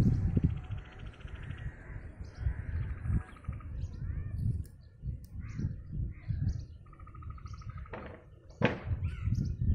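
Small birds chirping outdoors: many short chirps scattered throughout, a buzzy repeated trill near the start and again about seven seconds in, and one louder sharp call near the end. A low, gusty rumble runs underneath.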